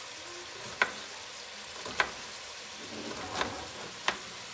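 Sliced zucchini and onion sizzling steadily in a stainless pot as they saute, with a knife knocking sharply on a cutting board three times, about once every second or two, and a softer knock in between.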